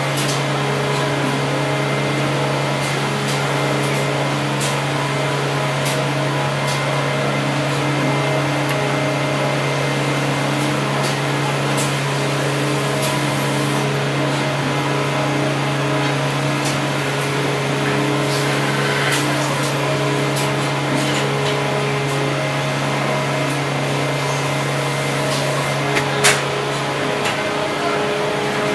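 LeBlond tool and die maker's lathe running: a steady machine hum with a constant whine of gearing above it, scattered light clicks, and one sharp click near the end.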